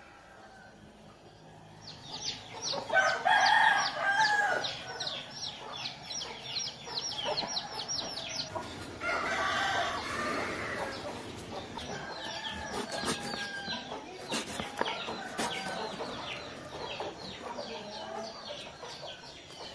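A rooster crowing, with chickens clucking, over a rapid high chirping trill. Later come sharp taps of a knife on a wooden chopping board.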